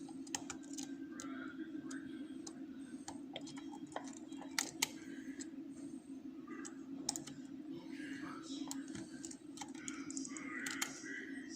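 Lock pick and tension tool working the pins of an ASEC rim cylinder: a scatter of small, irregular metal clicks and ticks as the pins are set, over a steady low hum.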